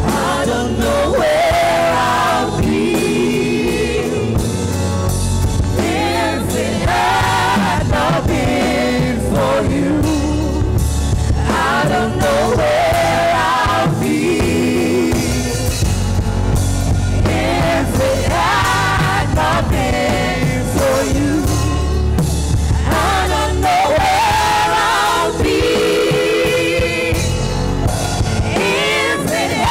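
Gospel worship song: voices singing in phrases over band music with a heavy bass line.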